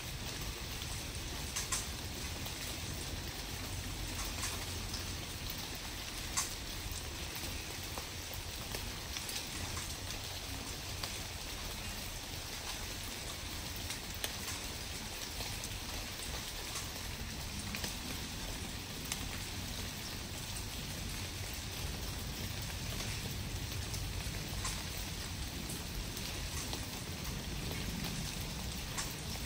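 Steady outdoor noise like light rain falling: an even hiss with scattered light ticks over a low rumble.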